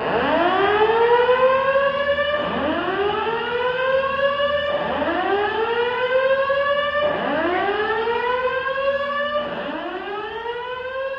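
Fire alarm voice-evacuation speakers sounding a whoop tone: five rising sweeps about two and a half seconds apart, each climbing in pitch, levelling off and cutting off sharply before the next begins. It is the evacuation signal of an activated fire alarm system.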